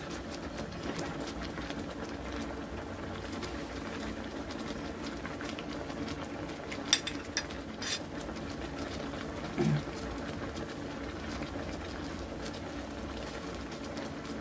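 Adobo sauce simmering in an electric wok, a steady low bubbling, with a few sharp clicks about seven and eight seconds in.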